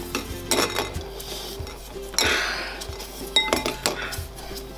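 Chocolate malt balls (Maltesers) clicking against a ceramic bowl and dropping into glass tumblers as they are lifted by suction through plastic straws: a scatter of light, irregular clinks, with a short hiss about two seconds in.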